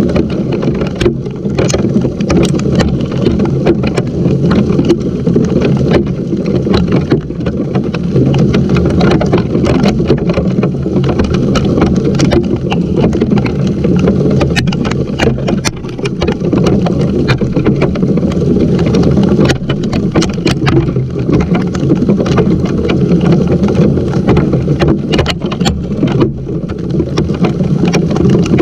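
Hail and rain pelting a GoPro and the wooden deck around it: a loud, steady rumbling wash with many sharp clicks of hailstones striking.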